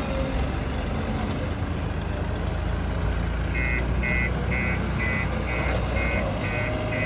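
Heavy diesel engine running steadily. A little past halfway a reversing alarm starts, beeping about twice a second.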